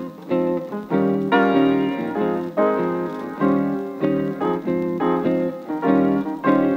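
Background piano music, with chords struck in a steady rhythm.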